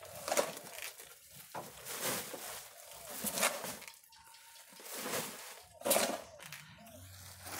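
Repeated scrapes of a small hand tool scooping granular goat-manure compost off the ground, each scoop followed by the rustle of the pellets pouring into a woven plastic sack, about six times.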